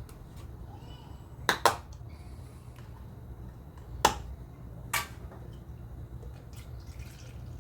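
A few sharp clicks and knocks of kitchen things being handled: two quick ones together, then two more single knocks, over a steady low hum.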